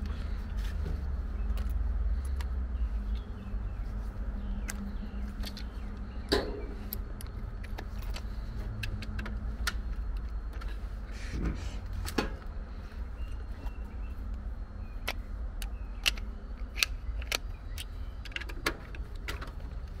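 Small irregular clicks, taps and rattles of hand tools and wire connectors being handled inside an air-conditioner control panel, over a steady low rumble.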